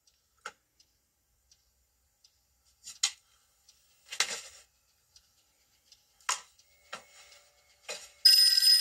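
A telephone bell starts ringing near the end, loud and continuous, after several seconds of near quiet broken only by a few short, faint clicks and knocks.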